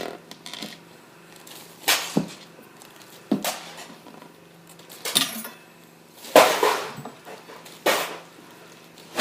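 Parts of an old printer clattering and knocking as they are handled and pulled apart, in about five separate bursts with quieter rattling between.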